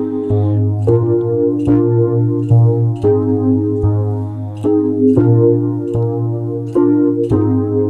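Synthesizer keyboard playing sustained electric-piano-like chords over a steady deep bass, the chord changing every second or so, with short percussive ticks on the beat.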